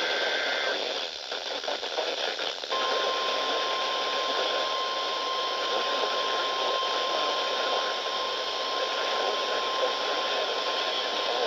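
NOAA Weather Radio test signal received through heavy radio static. The tail of a SAME data burst, two alternating tones, ends under a second in. After a couple of seconds of hiss, the steady 1050 Hz tone alert starts and holds, the tone that switches on weather alert receivers.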